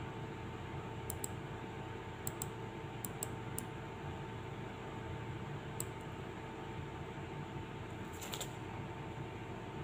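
Scattered light clicks of a computer mouse, some in quick pairs and a small cluster near the end, over the steady hum and fan noise of a desktop computer.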